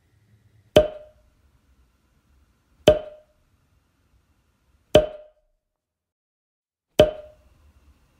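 Four sharp, identical knocks with a hollow, wood-block-like ring, evenly spaced about two seconds apart. Each one dies away in a fraction of a second.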